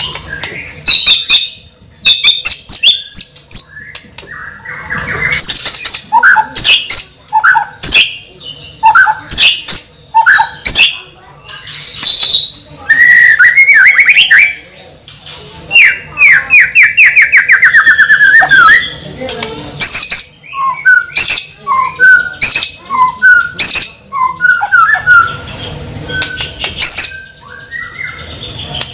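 A bird calling: a loud, busy run of chirps, squawks and sharp clicks, with a quick series of repeated notes about halfway through.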